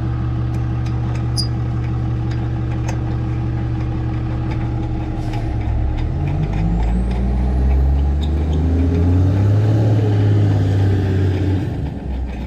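An engine running steadily. About six seconds in it rises in pitch and holds higher, then drops away near the end.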